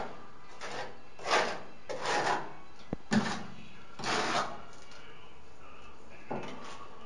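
Short scraping, rubbing strokes, about six of them at uneven spacing, as wet tile mortar is pressed and smeared into a gap in a plastered wall at the edge of a bathtub. There is one sharp click about three seconds in.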